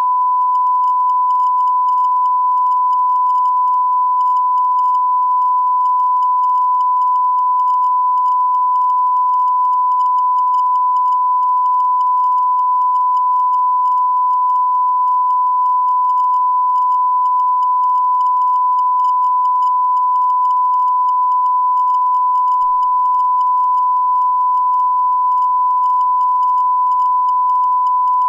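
Steady 1 kHz sine-wave audio test tone of a TV test signal, a loud, unbroken beep at one pitch, used to check a TV's sound output and volume control.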